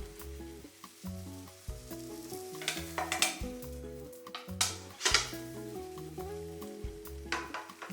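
Bitter melon and egg sizzling as they fry in a pan, stirred in three louder scraping spells about three, five and seven and a half seconds in.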